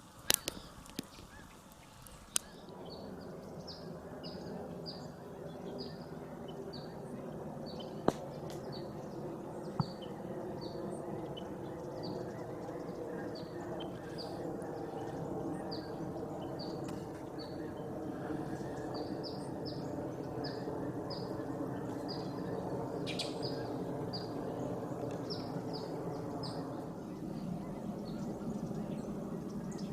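Short high chirps repeating about twice a second over a steady droning hum of several tones. The hum grows slowly louder, and a few sharp clicks come in the first ten seconds.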